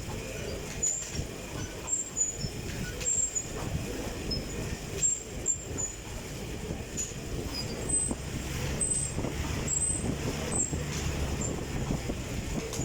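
Fan-resistance stationary exercise bike being pedalled, its fan and flywheel running with a steady whirring rumble that rises and falls a little.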